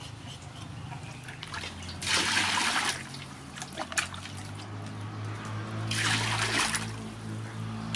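Water poured from a plastic bowl into a large aluminium basin, splashing in two pours of about a second each, one about two seconds in and one near six seconds in.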